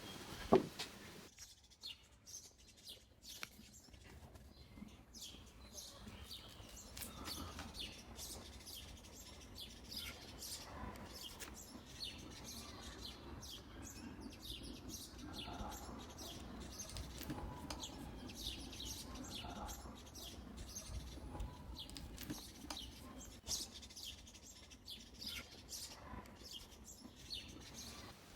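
Small birds chirping and tweeting on and off over a low background rumble, with one sharp knock about half a second in.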